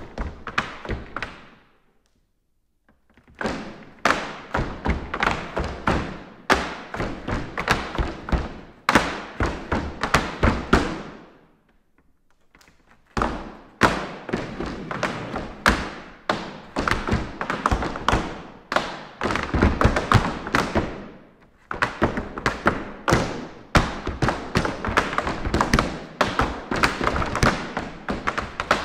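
Several dancers' tap shoes striking a hard floor in fast rhythmic patterns of taps and heavier stamps, with no accompanying music. The tapping stops twice for a second or two, about two seconds in and again near the middle.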